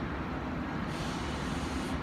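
Steady city traffic noise heard from high above: a continuous low rumble and hum. About a second in, a hiss joins it for about a second.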